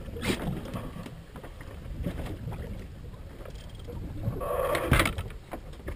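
Sea water washing against a small boat's hull over a steady low rumble, with a louder rush of noise around four to five seconds in.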